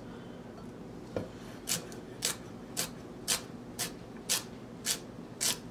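A large kitchen knife chopping celery on an end-grain wooden cutting board. It strikes in an even rhythm of about two strokes a second, starting about a second in.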